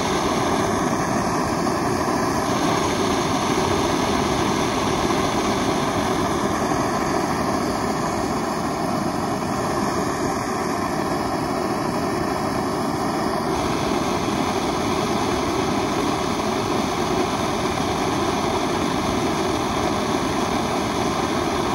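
SVEA No.100 kerosene pressure stove's roarer burner running at full flame: a steady, even roar of vaporised fuel burning.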